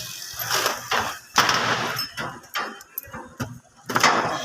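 A string of irregular sharp knocks and clatters, about six or seven in four seconds, the loudest about a second and a half in and again near the end.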